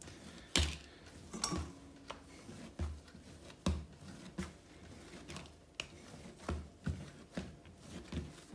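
Bread dough being kneaded by hand on a countertop: irregular soft thumps and slaps, about one a second, as the dough is folded over and pressed down with the heel of the hand.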